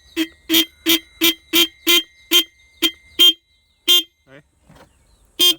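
A 12 V snail-type motorcycle horn sounding in short blasts, about three a second, then one more near the end. Its adjusting screw is being loosened bit by bit to bring the horn's sound back after it had stopped sounding.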